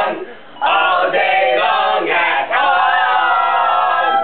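Several voices singing together in overlapping parts, without instruments, with a long held sung note in the second half.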